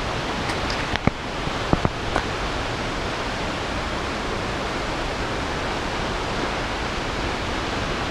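Steady rush of a high waterfall, Brandywine Falls, pouring into its plunge pool. A few sharp clicks come about one to two seconds in.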